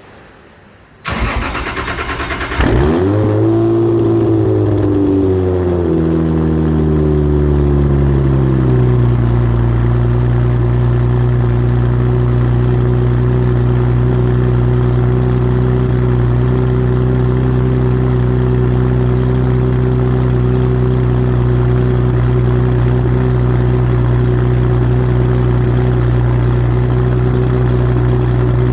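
Cold start of a turbocharged Toyota Supra Mk4's inline-six. The starter cranks for about a second and a half, then the engine catches and flares to a high idle. Its pitch falls gradually over about six seconds into a steady idle.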